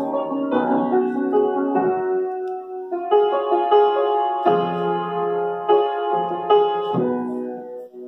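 Upright piano played in slow chords, each held for a second or so before the next. The last chord rings on and fades out near the end.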